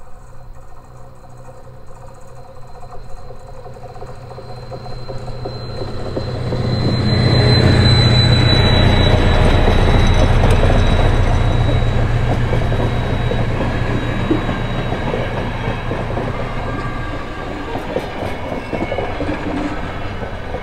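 SM42 diesel locomotive approaching and passing close by with its engine running, loudest about seven to twelve seconds in, followed by the double-deck coaches it hauls rolling past on the rails.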